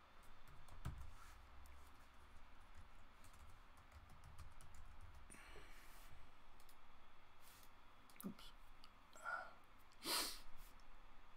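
Scattered faint computer mouse clicks and keyboard key presses. A short breathy sound about ten seconds in is the loudest thing.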